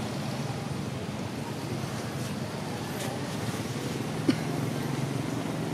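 Steady low background rumble with a hum, like distant motor traffic, and one short sharp click about four seconds in.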